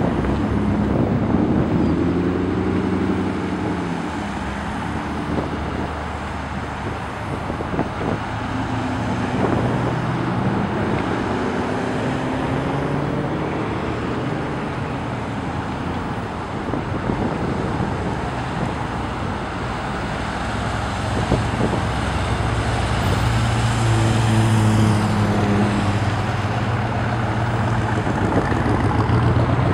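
A steady procession of Chevrolet Corvettes driving past one after another, with tyre and traffic noise. Their V8 engines give notes that swell and fade as each car goes by, loudest a few seconds before the end.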